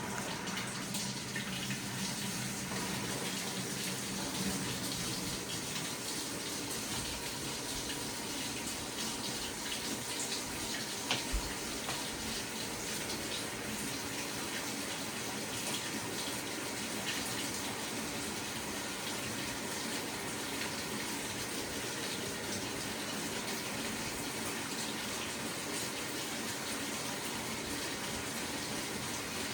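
LG WT7600HVA top-load washing machine filling its drum with water: a steady rush of water pouring in through the inlet.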